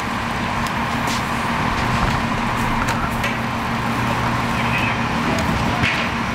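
An engine running at a steady speed, a constant drone, with scattered sharp knocks and clanks of equipment over it.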